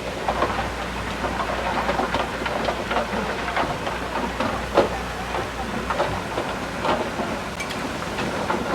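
Komatsu D31P crawler bulldozer working soil: irregular clanking and knocking from its steel tracks over the low drone of its diesel engine. The drone drops away about two-thirds of the way through while the clanking goes on.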